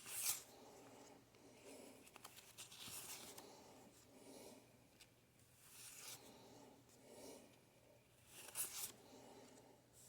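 Paper banknotes being handled and flipped one by one through a stack: soft swishes every second or two, the loudest just after the start and near the end, with faint rustling between.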